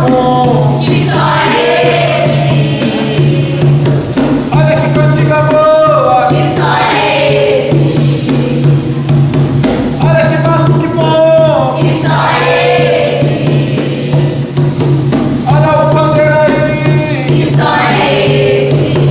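Capoeira music: group singing in recurring phrases over drums and percussion, with a steady low tone underneath.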